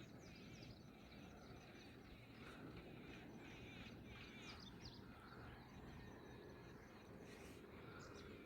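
Quiet outdoor farm ambience with scattered faint, high bird chirps over a low background hush.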